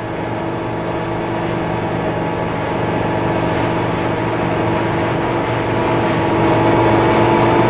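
Rescue helicopter hovering overhead, its engine and rotors making a steady, loud drone with a constant pitch that swells slightly toward the end.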